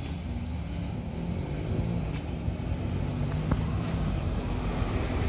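Light box truck's engine labouring up a steep hill, a steady low drone growing louder as the truck approaches.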